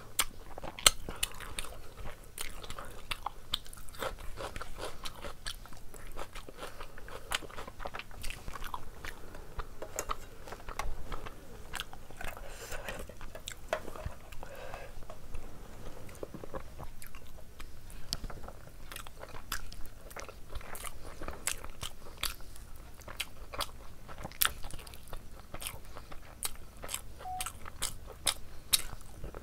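Close-up chewing and biting of curry-soaked meat and rice eaten by hand: a dense, irregular run of sharp wet mouth clicks and crunches.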